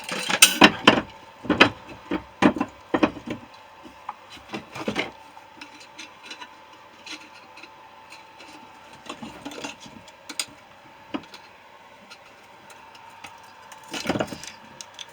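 Irregular knocks, clinks and scrapes of hand tools working on a scrap refrigerator compressor to get a stubborn part off, busiest in the first five seconds and again near the end.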